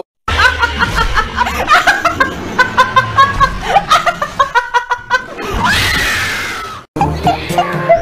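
A young woman laughing hard in quick repeated bursts, rising into a long, high-pitched squeal. It cuts off abruptly near the end.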